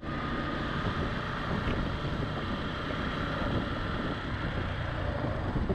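Steady wind rush on the microphone of a moving motorcycle, with the low drone of the Suzuki Gixxer SF's engine running underneath at a constant cruising speed.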